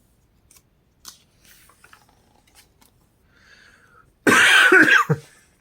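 A person coughs loudly once, about four seconds in, after a few seconds of faint clicks and rustling from book pages being handled.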